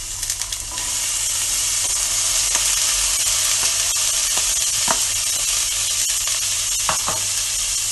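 Corn kernels and peas tipped into hot oil in a stainless steel pan, sizzling steadily, louder from about a second in. A few light clicks and knocks come as a spoon scrapes the last of them from the bowl.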